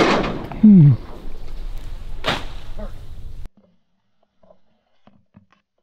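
Shotgun fire at flying ducks: the tail of one shot rolling away, a loud short sound falling in pitch just under a second in, and a second sharp shot a little over two seconds in. The sound cuts off abruptly about three and a half seconds in.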